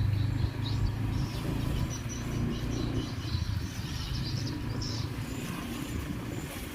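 A motor vehicle's low steady rumble, with birds chirping in short high notes over it.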